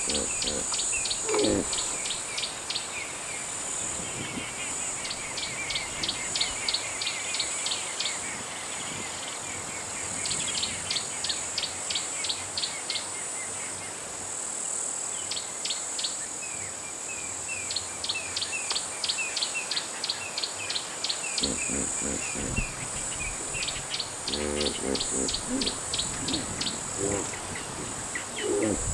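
Camera shutters firing in repeated bursts of continuous shooting, about four clicks a second, over a steady drone of insects in the bush.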